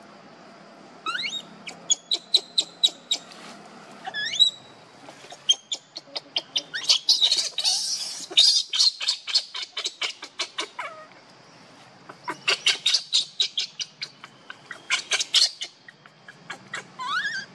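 Infant macaque screaming: short rising squeals and long runs of rapid stuttering cries, about six a second, loudest around the middle. These are the distress cries of a hungry baby refused milk by its mother.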